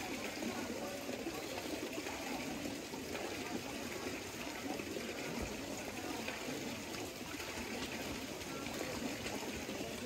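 Hot spring water running and trickling over small cascades, a steady even rush of flowing water.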